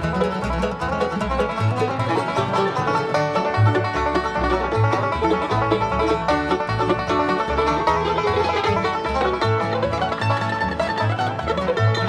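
Bluegrass band playing an instrumental break: quick picked banjo over guitar and mandolin, with the bass keeping a steady beat.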